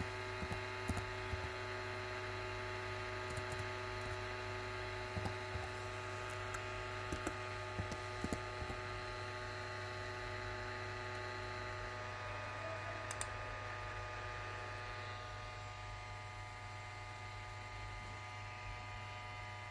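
Toshiba laptop keyboard keys tapped one at a time, scattered clicks over the first several seconds, then one sharper click past the middle, over a steady electrical hum.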